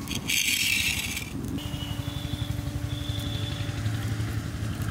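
An engine running steadily with a low pulsing drone and a held tone that rises slightly in pitch near the end; a short loud hiss in the first second.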